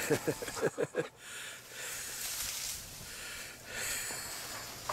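A quick run of short squeaky vocal sounds for about the first second, then a dog breathing and snuffling close up, breathy and uneven.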